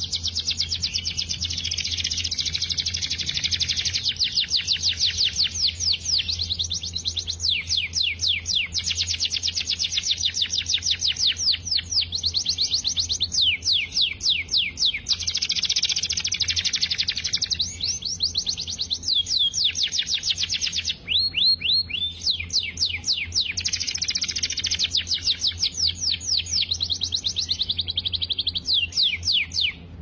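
F1 canary singing a long, continuous song of rapid trills and rolls, breaking off briefly about two-thirds of the way through before carrying on.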